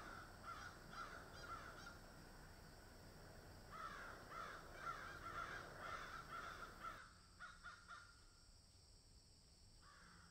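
Crows cawing faintly, many short calls in quick succession, thickest in the middle; the calls stop for a couple of seconds and start again near the end.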